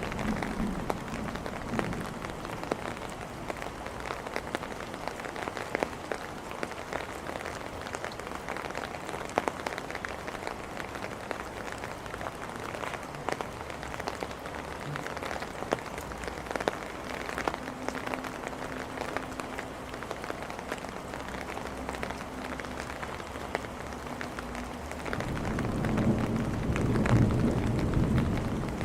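Steady rain falling on hard surfaces, with many sharp drops tapping through it. Near the end a low rumble of thunder swells up and grows louder.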